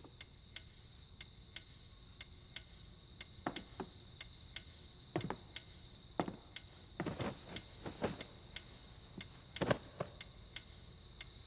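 Crickets chirping steadily in a continuous trill, with a few soft, irregular knocks and clicks scattered through it.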